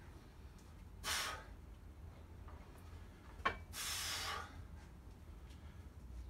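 A man's sharp, forceful breaths through the nose or mouth while straining to bend a bolt by hand: one short burst about a second in and a longer one past the middle. A short sharp click comes just before the second breath.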